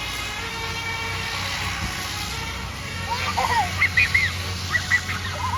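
A bus engine runs low and steady while the held chord of a multi-tone horn dies away. About three seconds in come several short, loud calls that rise and fall.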